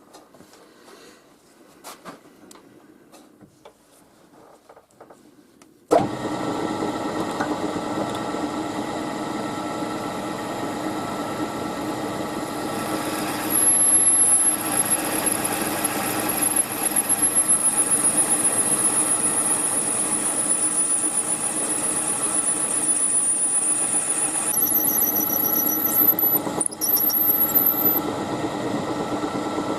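A few light clicks, then a machine-tool spindle starts abruptly about six seconds in and runs steadily. From about thirteen seconds a very high-pitched squeal from the cutter working in brass slowly falls in pitch, then jumps higher for a few seconds near the end.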